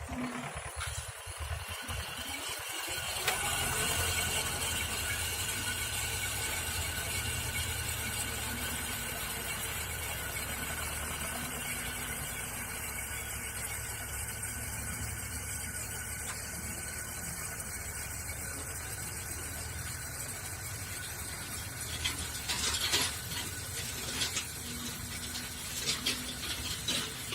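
Krot electric cultivator's motor, driven through a frequency converter, running with a steady high whine over a low hum as its tines till soil. It comes up to speed about three seconds in, and a few sharp knocks sound near the end.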